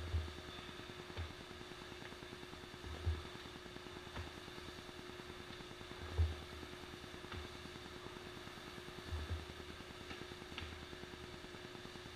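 Dull thumps of a man doing burpees on gym floor mats, his body dropping to the floor and his feet landing, about every one to two seconds, over a steady hum.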